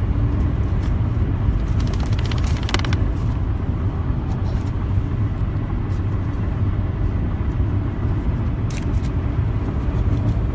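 Car engine running at idle, a steady low rumble, with a short run of clicks about three seconds in and another click near the end.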